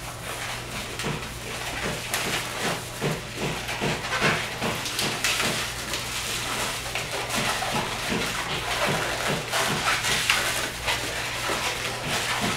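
Latex 260Q modelling balloons squeaking and rubbing as they are twisted into bubbles, a fast run of short squeaks, about two or three a second.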